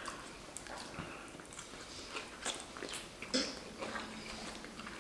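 Close-miked eating sounds of two people eating pasta: wet chewing and soft mouth smacks, with scattered light clicks of forks in ceramic bowls.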